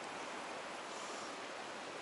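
Steady rush of a stream's current running over a shallow rock ledge.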